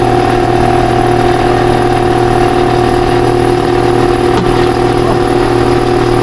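Steady machine hum at a constant level, a low drone with a few fixed tones above it and no change in pitch.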